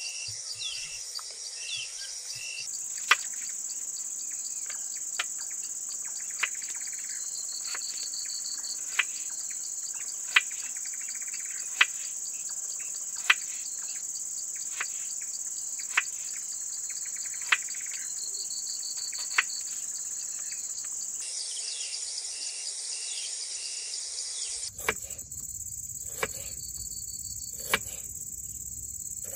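Steady high trilling chorus of crickets and other night insects, with a knife knocking on a cutting board about every second and a half as onions are sliced.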